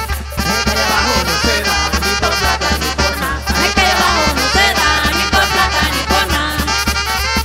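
Panamanian carnival tonada: upbeat music with brass over a steady bass beat.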